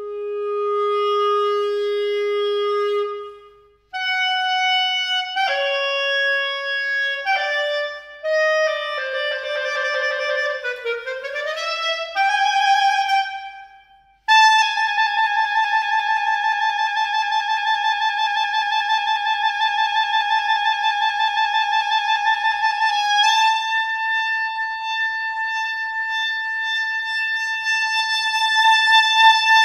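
Solo clarinet playing contemporary music unaccompanied. It holds a middle note, then moves in quick leaps and a rapid falling-then-rising run, with short breaks between phrases. It ends on one high note held for about fifteen seconds, stepping slightly about twenty-three seconds in.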